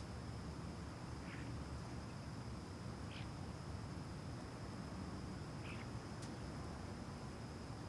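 Residential outdoor ambience: a steady low background rumble with a thin, continuous high-pitched tone, and three brief bird chirps spaced about two seconds apart.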